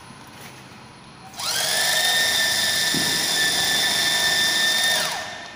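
Bag-closing stitching machine running: its motor whines up to speed about a second and a half in, runs at a steady high pitch for a few seconds, then winds down and stops near the end.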